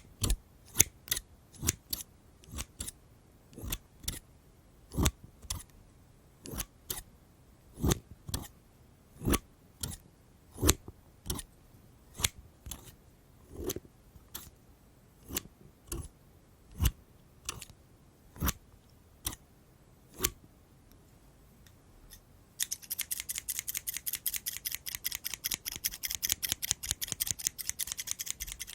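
Scissors snipping, crisp separate snips about one or two a second, stopping about twenty seconds in. After a short pause a fast, continuous run of fine high-pitched clicks starts near the end.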